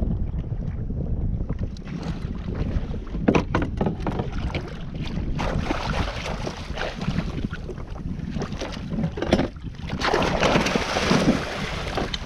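Steady low wind rumble on the microphone, broken by sharp knocks and bursts of splashing water beside the kayak. The longest and loudest burst comes about ten to eleven seconds in. The sounds come as a hooked fish at the side is struck with a wooden fish club.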